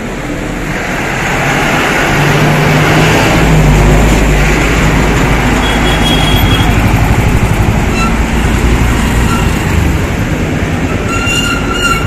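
A heavy truck's engine runs close by, a loud, deep rumble over road noise that builds over the first few seconds. A short vehicle horn sounds near the end.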